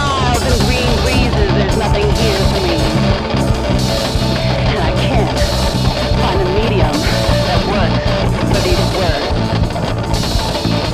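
A rock song played by a band of electric guitars, bass and drums, with a wavering guitar or vocal line over a steady low end.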